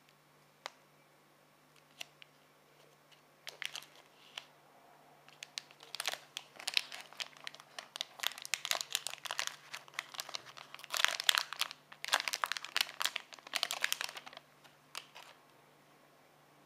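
Plastic film wrapper of a Milch-Schnitte snack bar crinkling and tearing as it is pulled open by hand. A few single ticks are followed from about four seconds in by a dense run of sharp crackles that is loudest in the middle and dies away near the end.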